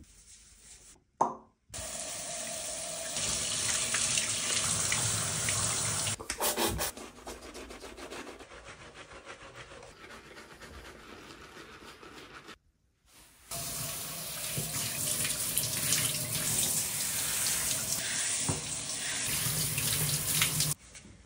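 A handheld shower head spraying water onto a dog in a shower stall, in two long stretches of steady spray with a quieter stretch between them. There is a sharp click about a second in.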